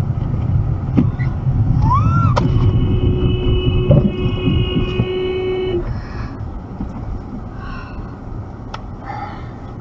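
Steady low road and engine rumble heard from inside a car in slow traffic. About two and a half seconds in, a car horn sounds one steady note held for about three seconds, just after a brief whistling glide.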